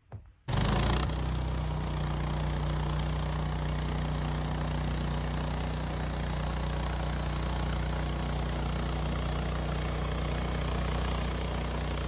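Woodmizer LT15 sawmill's engine running steadily. It comes in abruptly about half a second in, after a few faint clicks.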